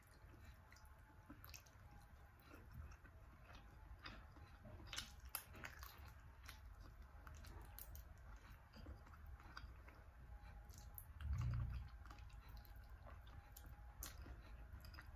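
Faint chewing and sucking on chicken feet cooked in coconut milk, with soft wet mouth clicks scattered through. A dull low thump sounds about two-thirds of the way through.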